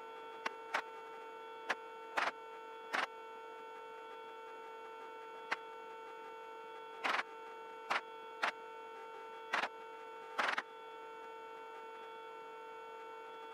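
Steady electrical hum with several even overtones on a helicopter's radio and intercom audio, broken by about a dozen brief bursts of static at irregular moments.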